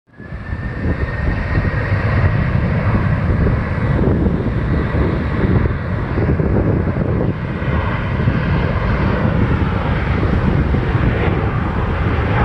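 Boeing 737 jet engines running at takeoff power: a loud, steady rumble with a thin high whine that fades after about four seconds.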